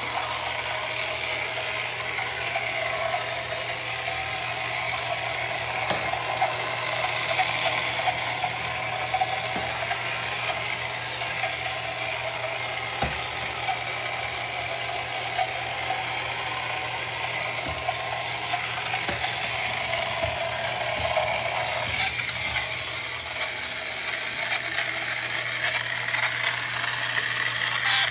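The small motor and gears of a 1968 Ideal Motorific Boaterific toy outboard, driving an Avenger toy boat, running steadily with a mechanical whir.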